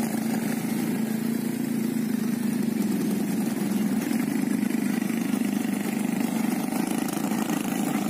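Several ATV (quad bike) engines running steadily.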